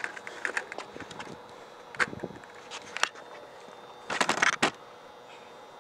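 Skateboard knocks and clacks: the board hitting the ground and ramp, sharp snaps about two and three seconds in, then a louder rough burst of about half a second just after four seconds in, like wheels or a truck scraping over the ramp or rail.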